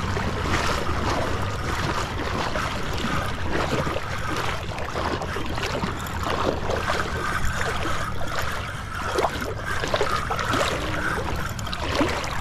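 Wind buffeting the microphone and water lapping against a small boat's hull, with scattered light clicks and knocks of the fishing tackle as a hooked jack crevalle is played on a bent rod.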